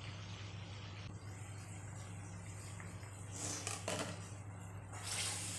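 Curry gravy bubbling in a steel kadai over a steady low hum. A brief clatter comes a little over three seconds in as the glass lid comes off, and the bubbling gets louder about five seconds in.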